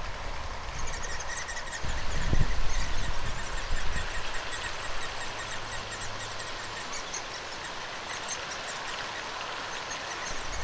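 Great spotted woodpecker nestlings begging faintly from inside the tree nest hole: a run of short, high, rapidly repeated calls while an adult is at the entrance, over a low background rumble.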